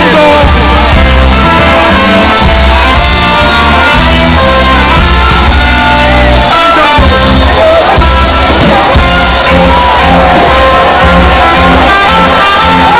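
Loud live band music with a steady bass beat.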